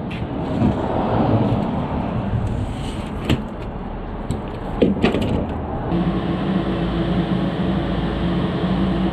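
Vehicle running with road rumble and a few sharp knocks or rattles. About six seconds in, the sound changes to a steady low hum.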